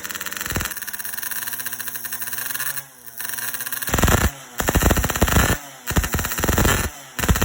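Yamaha RX-King 135cc single-cylinder two-stroke engine running through an Altech C20 aftermarket exhaust set up for a growling tone: a rapid, rattling run for about three seconds, then loud, sharp throttle blips in quick bursts.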